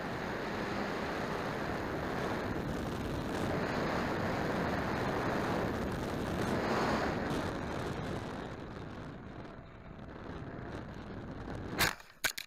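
Wind rushing over an onboard camera on a Dynam Albatros RC biplane as it dives, easing off about three-quarters of the way through. Then, near the end, a sharp loud crash into the ground, followed quickly by a few smaller knocks as the model tumbles.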